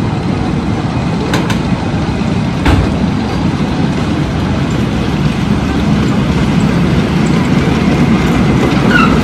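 Wooden roller coaster train rumbling along its wooden track, growing a little louder as it comes closer, with a couple of sharp clacks in the first few seconds.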